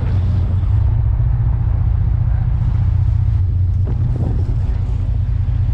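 Fishing boat's engine running steadily in forward gear at low speed, a deep, even drone.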